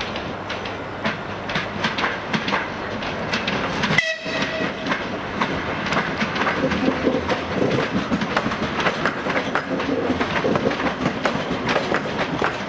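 Wheels of an EG2Tv 'Ivolga 2.0' electric multiple unit clattering over rail joints and switches as the train runs past, with a steady rumble under repeated clicks. A brief high tone sounds about four seconds in.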